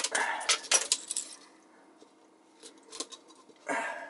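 Broken pieces of ice clinking and clattering in a kitchen sink, with water splashing, as the unfrozen water is emptied out of a hollow ice-globe shell. A burst of clatter in the first second or so, a short lull, a couple of single clinks, then another clatter near the end.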